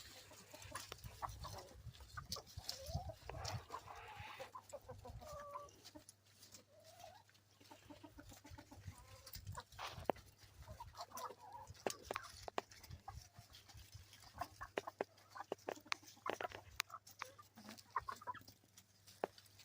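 Domestic chickens clucking quietly, short wavering calls here and there, among scattered light clicks.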